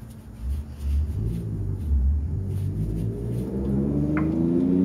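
A motor vehicle engine rumbling low, then rising steadily in pitch as it revs up or accelerates.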